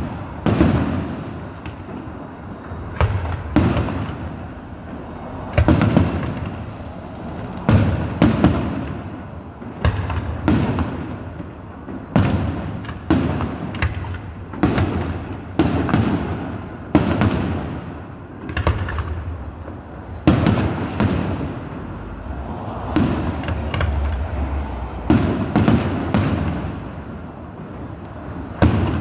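Fireworks display: aerial shells bursting one after another, roughly every one to two seconds, each boom trailing off in a rumbling echo.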